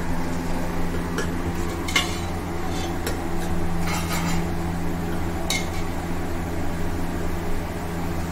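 A metal spoon stirring in an open stainless steel pressure cooker, scraping and clinking against the pot several times, over a steady low hum.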